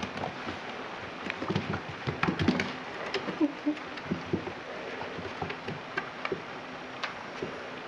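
A puppy's paws and claws pattering and tapping irregularly on a wooden floor as it scampers and plays, busiest in the first few seconds.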